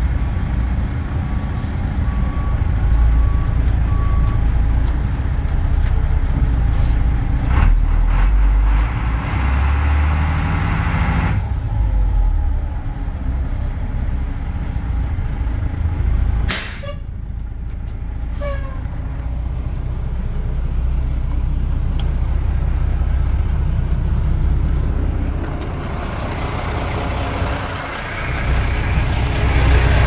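1990 Blue Bird school bus engine running with a steady low rumble. Its reversing alarm beeps evenly for the first few seconds, and a brief hiss comes about 17 seconds in.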